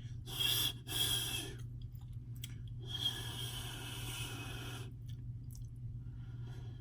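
A man trying to whistle and failing: three breathy blows of air through pursed lips with no clear note, the last about two seconds long, over a steady low hum.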